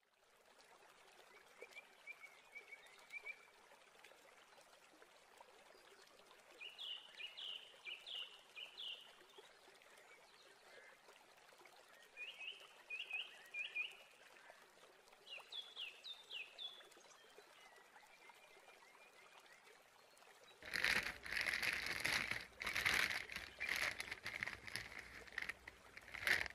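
Plastic bag rustling and crinkling loudly as hands dig through raw chicken legs, starting about three-quarters of the way in. Before that, only faint hiss with a few short runs of high bird-like chirps.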